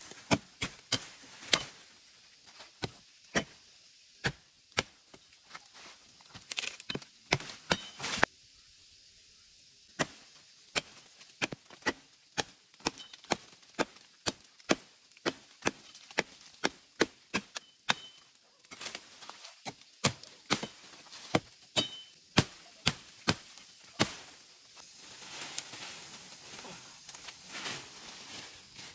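Machete chopping into the branches of a fallen tree: a long series of sharp wooden chops, about one to two a second, with a pause about eight seconds in. Near the end the chops come among a steady rustle of leaves.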